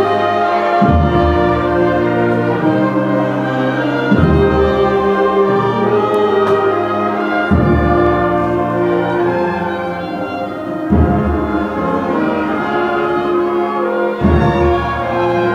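A school pep band of brass and woodwinds (trumpets, trombones, clarinets, flutes and sousaphone) playing a sustained tune in chords, with a low bass note coming in about every three and a half seconds.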